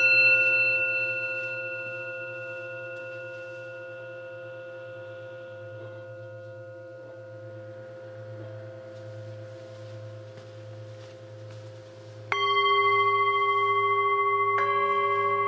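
Tibetan singing bowls struck with a felt-covered wooden mallet. A bowl struck just before rings on with a long, slowly fading, wavering tone. About twelve seconds in, a bowl is struck loudly again, and a third strike follows about two seconds later, each adding its own ringing tones over the others.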